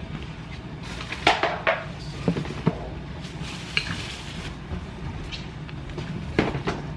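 Decorations being lifted out of and set down in a clear plastic storage tub: scattered knocks and clatters against the plastic, with rustling of crumpled paper in between, and a few more knocks near the end.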